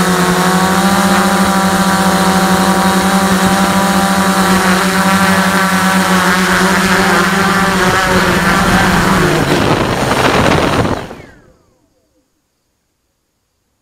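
Quadcopter's four electric motors and propellers droning steadily in flight; the pitch drops about eight seconds in as it comes down, then the motors spin down with a falling whine and stop about eleven seconds in.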